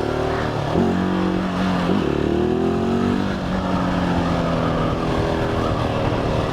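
Single-cylinder dual-sport motorcycle engine under way, its pitch dropping about a second in and climbing again near two seconds as it shifts and accelerates, then holding steady.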